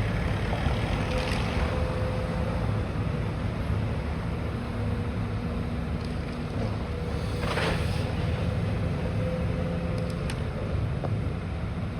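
Demolition excavator's diesel engine running steadily, with an on-and-off hydraulic whine. There is a short crash about seven and a half seconds in.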